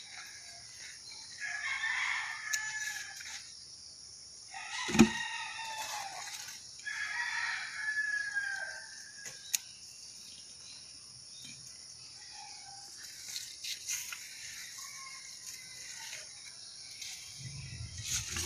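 A rooster crowing twice, each crow lasting about two seconds, with a sharp click between the crows.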